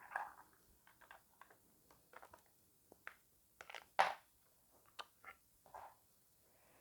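Small plastic building-set pieces clicking and tapping as they are handled and pressed together: a scatter of short clicks, with one sharper click about four seconds in.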